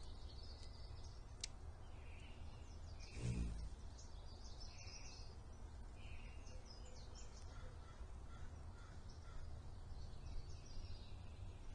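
Faint chirps and calls of small wild birds. A brief low buzz comes about three seconds in.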